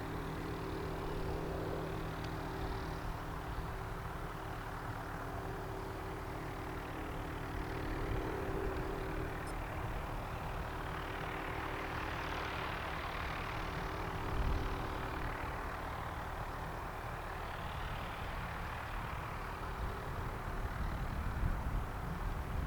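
Radio-controlled scale Aérospatiale Lama helicopter in flight: a steady hum of motor and rotors that swells and fades as the model moves about.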